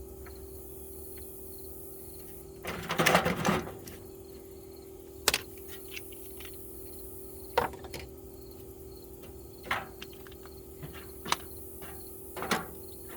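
Metal tools and sockets being handled and set down in a toolbox: a longer clattering rattle about three seconds in, then five sharp clinks and knocks spaced a second or two apart. A steady hum runs underneath.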